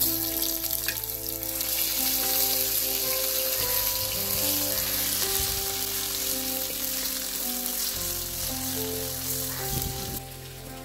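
Hot oil with cumin seeds sizzling in a clay pot as crushed garlic is dropped in. The sizzle starts suddenly and dies down shortly before the end.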